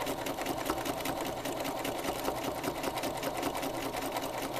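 Sewing machine running steadily in free-motion quilting, the needle stitching in a fast, even rhythm while travelling back over existing lines of stitching.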